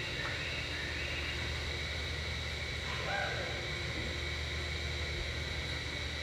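Steady low hum and hiss of arena background noise, with a few faint short chirps near the start and about three seconds in.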